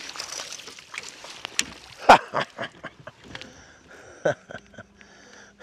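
A small hooked bass splashing at the surface beside a bass boat, then being scooped up in a landing net. Several sharp knocks come as it is netted and lifted aboard, the loudest about two seconds in.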